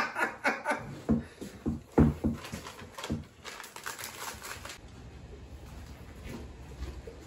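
Cornbread batter being stirred by hand in a stainless steel mixing bowl: a utensil clinking and scraping against the metal in quick repeated strokes, stopping about four and a half seconds in.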